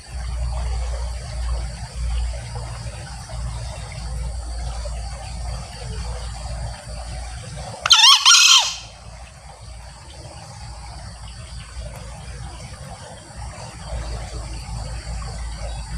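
Male green junglefowl giving one short, high-pitched crow about halfway through, a little under a second long. A steady insect chirring runs underneath.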